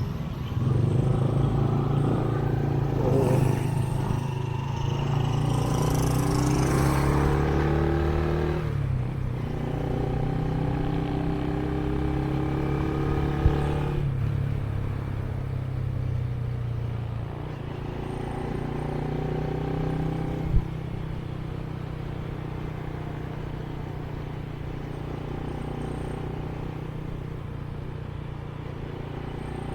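Rush-hour road traffic: a steady engine hum with motor vehicles passing, one accelerating by with a rising engine note in the first several seconds. Two brief sharp clicks stand out, about a third of the way in and about two thirds of the way in.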